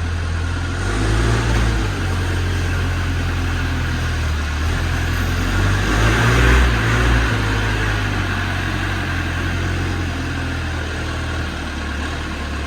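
A vehicle engine running steadily at low speed, rising briefly about a second in and again around the middle.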